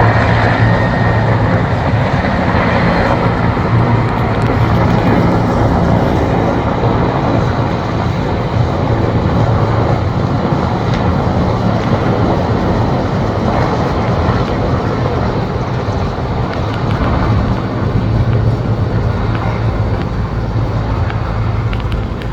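Mil Mi-17 helicopter's twin turboshaft engines and rotors running loud and steady with a deep low drone, easing slightly in level over the last several seconds.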